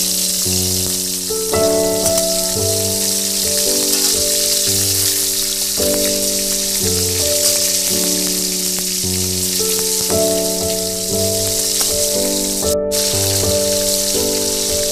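Hilsa fish steaks frying in hot oil in an iron wok, a steady sizzling hiss, under a plain stepping background melody. The sizzle cuts out for a moment near the end while the music carries on.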